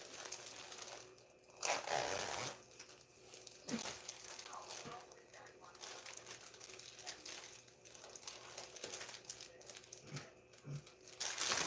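Plastic packaging of tortilla wraps crinkling and rustling as it is handled, with two louder bursts of crinkling, about two seconds in and again at the end.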